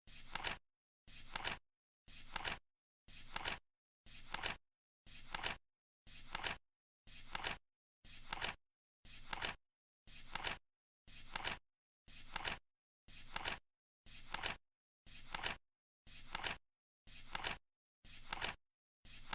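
Flip-clock countdown timer's tick sound effect: one short noisy tick every second, each swelling for about half a second and then cutting off, with dead silence between.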